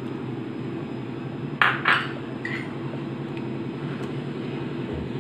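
Two sharp clinks of a metal utensil against a pan about a second and a half in, then a lighter ping, while custard powder mixed in milk is poured into boiling milk and stirred with a metal spoon. A steady low hum runs underneath.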